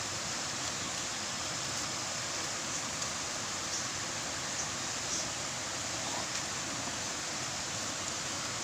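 Steady rush of flowing stream water, with a few faint ticks.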